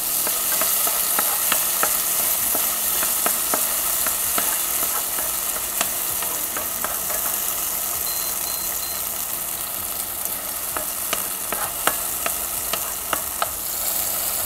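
Chopped onion, garlic and diced tomato sizzling in hot olive oil in a non-stick wok, a steady frying hiss with frequent sharp pops and ticks, while a wooden spoon stirs them around the pan.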